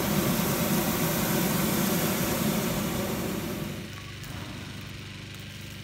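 Hot air balloon's propane burner firing in one loud blast that cuts off about four seconds in, over a small engine running steadily.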